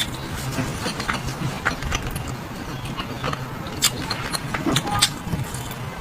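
Utensils clicking and clinking against food trays, in irregular sharp knocks over a steady background noise.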